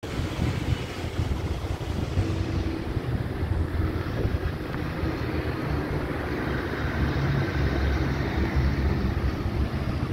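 Wind buffeting the microphone, an uneven low rumble, over a faint steady background hum.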